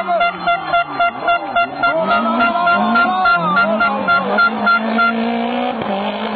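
Rally car engine revving up and down, its pitch rising and falling with throttle and gear changes. Under it a repeated horn-like beep sounds about three times a second and stops about five seconds in.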